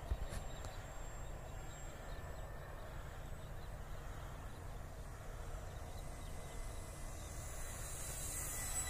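Electric RC model Spitfire's motor and propeller passing low, a rushing whine that builds up over the last second or two, over a steady low rumble.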